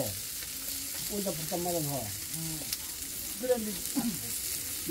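Pork neck and belly sizzling on a hot stone grill: a steady high hiss, with voices talking over it.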